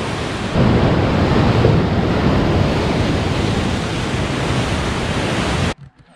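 Strong wind buffeting the microphone, a loud, steady rushing noise that swells about half a second in and cuts off abruptly near the end.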